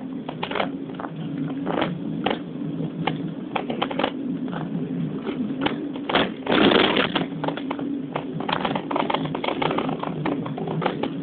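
A car driving slowly downhill, heard from inside: a steady low engine drone with frequent irregular clicks and knocks from the cabin and the road, and a louder rumble about six and a half seconds in.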